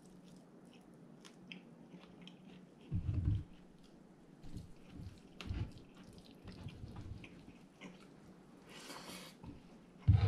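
A person eating deep-fried quail: soft intermittent chewing and the small clicks and thuds of handling the food, the loudest thud about three seconds in, with a short breathy hiss near the end.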